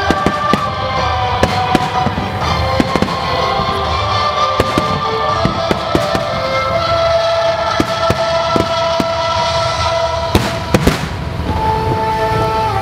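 Fireworks going off in a string of sharp bangs, with two heavy bursts near the end, over music playing long held notes.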